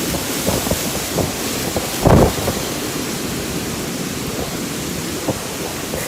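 Storm wind and heavy rain: a steady rushing noise broken by a few dull thumps, the loudest about two seconds in.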